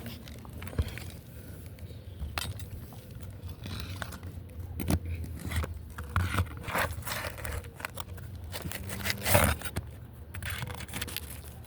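Brittle asphalt roof shingles crackling, scraping and tearing as they are pried up, in irregular crunchy snaps, the loudest cluster about nine seconds in. The shingles are brittle and tear apart rather than lifting cleanly.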